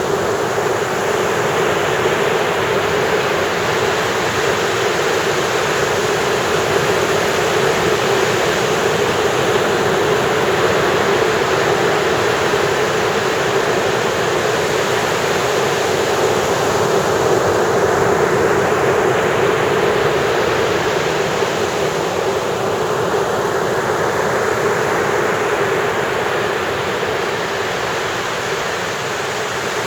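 Ocean surf breaking and washing up a beach: a steady, loud rush of waves with no letup.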